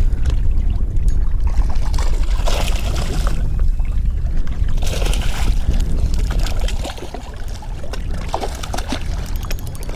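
Water slapping and sloshing against a small fishing boat's hull with a heavy low rumble, while a hooked smallmouth bass is fought close to the boat. Two short rushes of splashing come at about two and a half and five seconds in.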